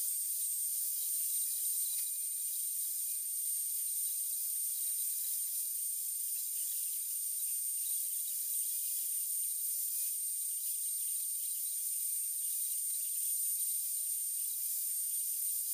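Handheld electric angle grinder fitted with a flat sanding pad, running steadily with a high whine and a hiss.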